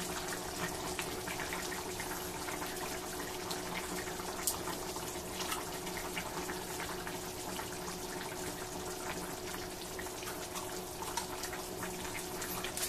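Beef curry bubbling and sizzling in a frying pan as the beef braises in the liquid it has released: a steady simmering hiss with small scattered crackles. A faint steady hum runs underneath.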